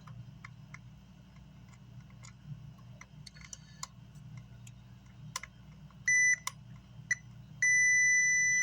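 Digital multimeter's continuity beeper: a short beep about six seconds in, then a steady beep from near the end as the probes close a low-resistance connection on the circuit board. Light clicks of the probe tips tapping the board come before.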